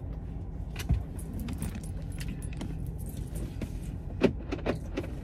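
Light clicks and small rattles of objects being handled, a few near the start and a cluster near the end, over a steady low hum in the vehicle's cabin.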